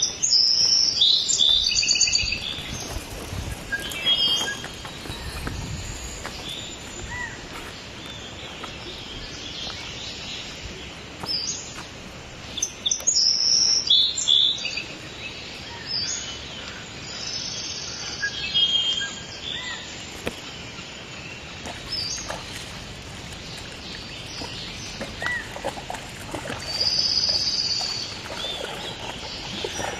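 Wild birds chirping and trilling in scattered high bursts, most thickly at the start, around the middle and near the end, over a steady background hiss.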